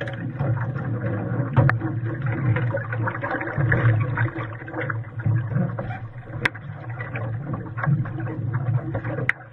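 Water rushing and slapping against a Hobie Cat catamaran's hull right by the microphone as the boat sails, mixed with wind noise, with three sharp clicks.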